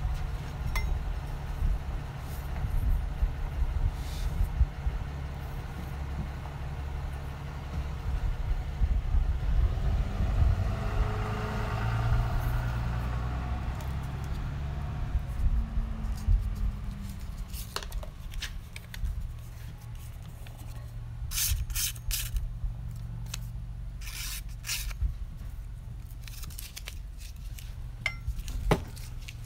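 Kitchen knives clicking and scraping against each other as they are handled in a tray and set down, with a cluster of sharp clicks past the middle, over a steady low hum.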